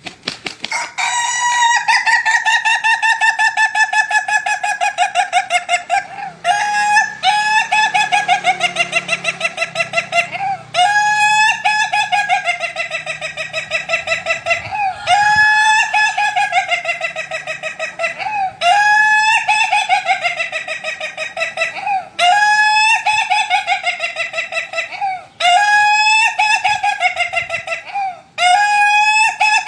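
Rooster crowing again and again: about eight long, drawn-out crows of three to five seconds each, one right after another.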